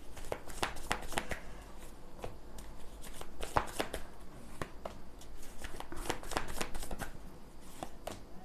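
Tarot cards being shuffled and dealt out one after another onto a tabletop mat: a steady run of quick card flicks, snaps and taps.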